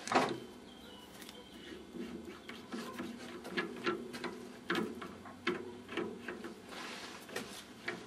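Irregular light clicks and knocks as a freshly turned brass ball held in a small metal lathe's chuck is handled and turned by hand, with one sharper click at the start.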